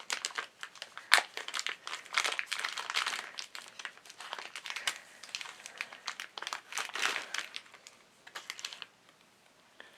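Plastic bag crinkling and rustling as a new door latch is unwrapped, in irregular crackles that die away about nine seconds in.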